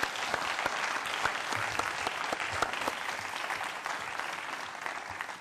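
Audience applauding, dense clapping that fades out near the end.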